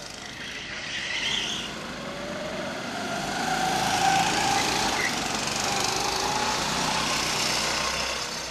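A go-kart engine running at speed on the track, getting louder as the kart comes closer. Its note climbs about two seconds in and then holds high.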